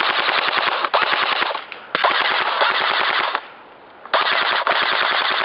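Airsoft electric rifle firing full-auto bursts, a fast rattle of shots. Several long bursts are separated by brief pauses, with the longest pause a little past the middle.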